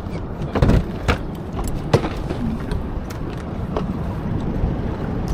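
Steady low rumble of a fishing boat at sea, with a few sharp knocks and clicks in the first four seconds.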